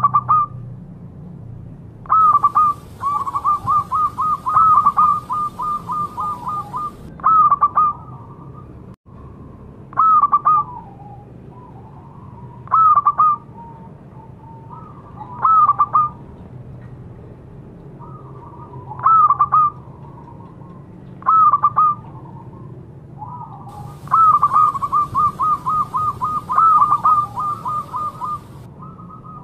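Zebra dove (perkutut) cooing: short, clipped coo phrases repeat every few seconds. Twice, once early and once near the end, they run into a long, rapid string of staccato coos lasting about five seconds.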